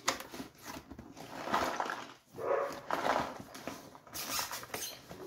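Cardboard scraping and rustling as an outer cardboard shipping carton is worked off the box inside it, in several uneven swells about a second apart.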